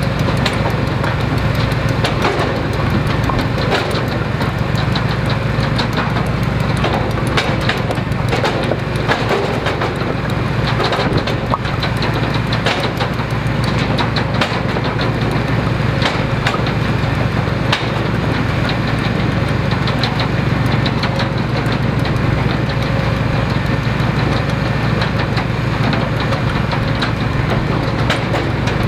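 Engine of a firewood log splitter running steadily at constant speed, with scattered short knocks and clatter of split wood pieces.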